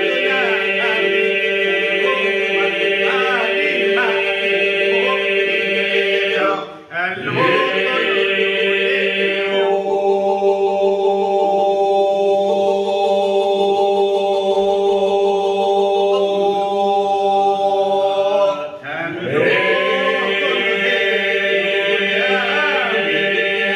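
A group of men singing an Albanian polyphonic folk song unaccompanied. A steady drone is held under one or two leading voices, and the song falls in long phrases with short breaks for breath about 7 and 19 seconds in.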